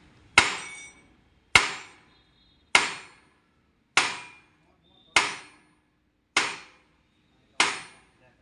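Sledgehammer striking the rear axle of an Eicher 5660 tractor. There are seven heavy metal-on-metal blows, evenly spaced a little over a second apart, each ringing briefly, hammering the axle to drive it out of its housing.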